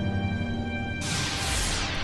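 Ominous film-score music with held tones. About a second in, a bright hissing whoosh comes in over it, with tones sliding downward in pitch.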